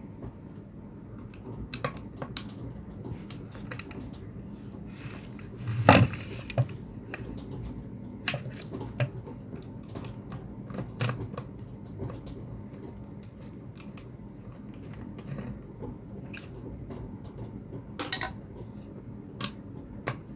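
Scattered clicks and knocks of tools and parts being handled while a submersible pond pump is opened up, with a louder knock about six seconds in.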